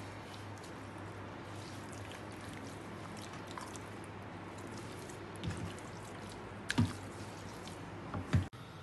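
Hand rubbing a wet spice-and-oil masala paste into boneless fish fillets in a plastic bowl: soft, wet squishing, with three short, louder squelches in the second half.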